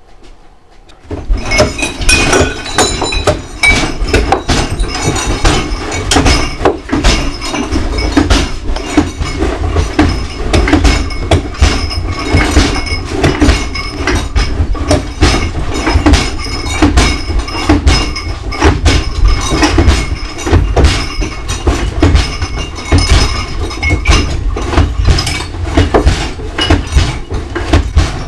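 Loud, continuous clattering and knocking over a deep rumble, starting suddenly about a second in.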